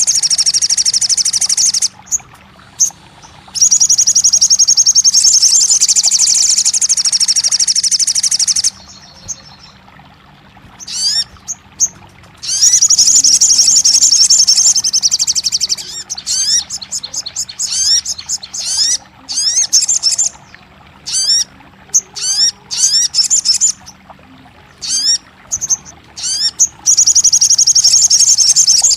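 Crimson sunbird (sogon) song: long, high, rapid trills lasting a few seconds at a time, alternating with series of short, quick rising chirps.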